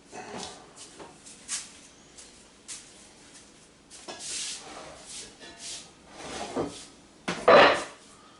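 Kitchen clatter as a bowl is fetched: a string of knocks and clinks from cabinets and dishware, the loudest about seven and a half seconds in.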